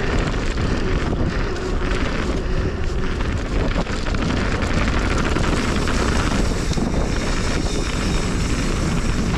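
Mountain bike rolling fast down a dirt singletrack: steady wind rushing over the camera microphone, with tyres rolling on dirt and loose rock.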